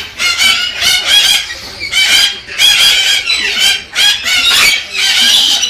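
Galah cockatoo calling over and over, a run of short loud calls packed closely together with only brief breaks.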